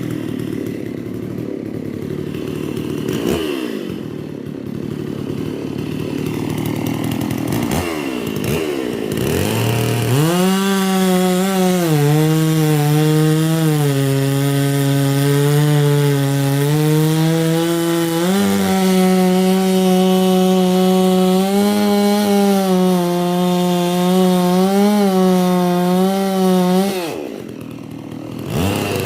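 Holzfforma G660 two-stroke chainsaw, a Stihl MS660 clone, running. For the first ten seconds or so it runs unevenly at lower speed with a couple of quick revs. Then it holds at high speed, its pitch sagging and recovering as it cuts wood, before dropping off briefly near the end and revving up again.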